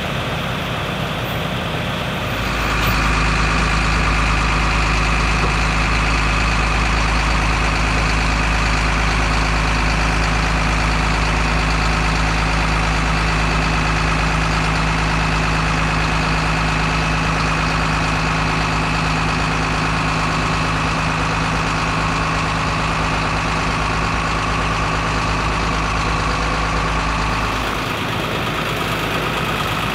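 Large diesel engine idling steadily. It gets louder about two and a half seconds in and drops back a little near the end.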